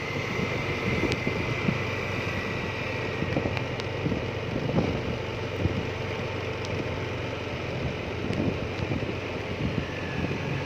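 Engine of a moving road vehicle running at a steady speed, with wind rushing over the microphone.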